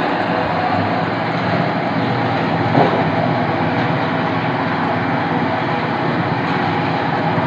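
Steady mechanical drone: an even noise with a low hum underneath, and one brief knock about three seconds in.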